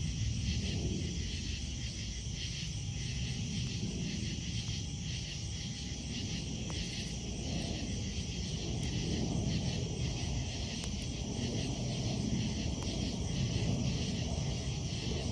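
Night insects chirping in a steady, rapidly pulsing chorus over a campfire, with a few faint crackling pops from the fire and a constant low rumble underneath.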